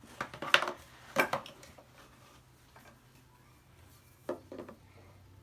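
Desk leg pieces knocking and clattering as they are handled and pushed into place during assembly. A burst of sharp knocks comes in the first second and a half, then a few more come near the end.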